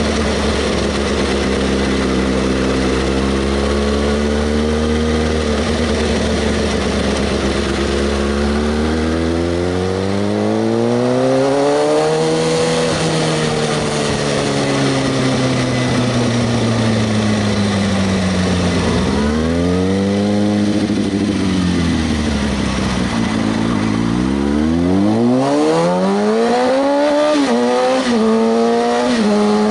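Kawasaki ZX-6R 636's inline-four engine running: a steady note at first, then rising and falling in pitch several times as it revs and eases off. Near the end the pitch climbs in steps with short dips, like upshifts under acceleration.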